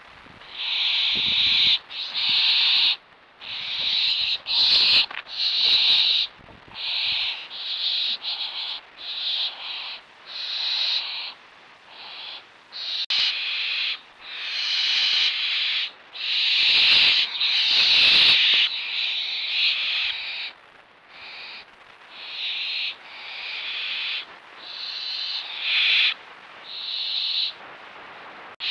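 Young barn owls giving a long series of rasping food-begging hisses, each about a second long, one after another with short gaps.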